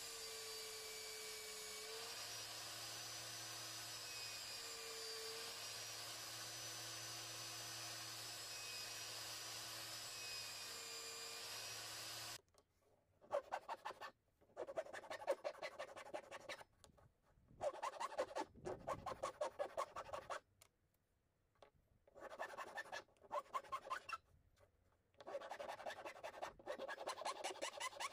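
An upturned belt sander runs steadily, its motor pitch dipping slightly as a small wooden piece is pressed against the belt; it stops suddenly about twelve seconds in. Then a hand chisel pares the wood in short bursts of rapid scraping strokes, each about a second long, with pauses between.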